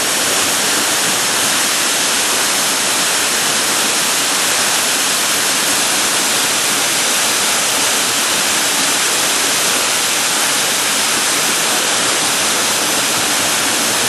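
Shasui Falls, a waterfall, pouring in a loud, steady rush of falling water.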